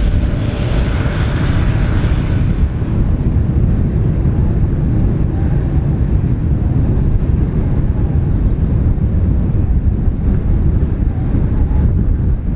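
Boeing 747-8F freighter's four GE GEnx jet engines running at idle while the aircraft stands still, a steady low rumble mixed with wind buffeting the microphone. A higher hiss fades away in the first couple of seconds.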